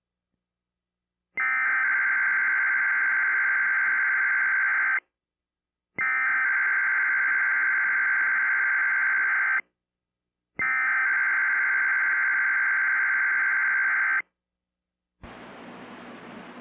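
Emergency Alert System digital header: three identical screeching data-tone bursts of about three and a half seconds each, a second apart, opening the NOAA Weather Radio Required Weekly Test. Near the end, a quieter steady radio hiss with a low hum comes in.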